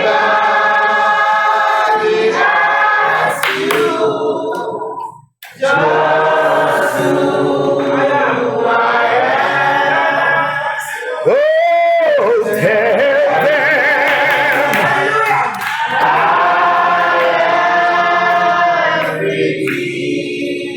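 A church congregation singing a gospel chorus together. The singing breaks off briefly about five seconds in, and around twelve seconds in one voice slides up and back down.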